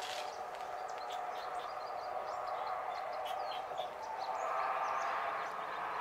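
A steady background hum that swells after about four seconds, with brief high bird chirps scattered over it.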